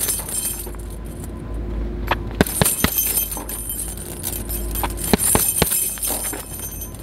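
Gloved punches landing on a hanging RDX filled heavy bag in short flurries, each a sharp thud, with the bag's hanging chain jangling as it swings.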